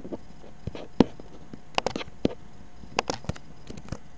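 Computer mouse and keyboard clicking: about eight short, irregularly spaced clicks over a faint steady hiss.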